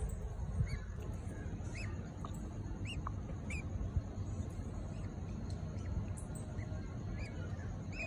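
Budgerigar chicks cheeping: short, high chirps about one a second, over a steady low rumble.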